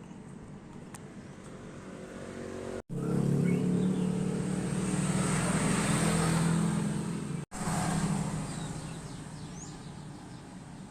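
A motor vehicle engine passing close by: a steady engine hum that grows louder, holds for a few seconds and then fades away.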